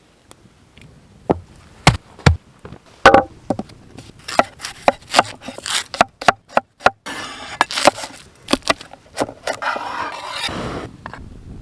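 Firewood being chopped and broken: irregular sharp wooden knocks and cracks, with two longer scraping, rustling stretches in the second half.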